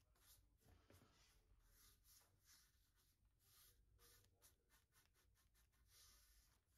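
Faint rubbing strokes of a small hand-held tool working back and forth over the edge of a wooden tabletop, about three quick scratchy strokes a second.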